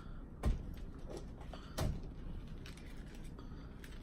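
Eating sounds from a lettuce-wrap mukbang: two short, crisp crunches about a second and a half apart, with faint chewing between.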